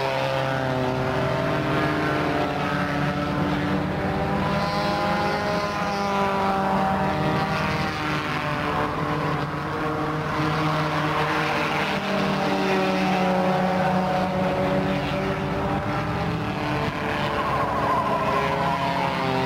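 A pack of four-cylinder stock cars racing together, several engine notes overlapping and slowly rising and falling in pitch as the cars go round the oval.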